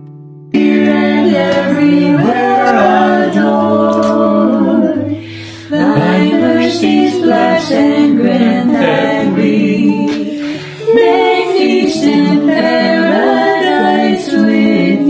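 A family singing a mealtime grace a cappella, several men's, women's and children's voices together. It starts about half a second in, with a brief pause for breath near the middle.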